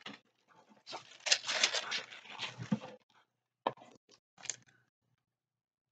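Tissue paper rustling and crinkling for about two seconds as it is handled and pulled from a box, followed by two short light taps.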